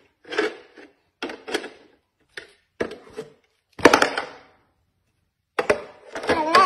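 Hard plastic shape-sorter toy pieces and lid knocking and clattering as a baby handles them: a run of separate clacks with short gaps, the loudest about four seconds in.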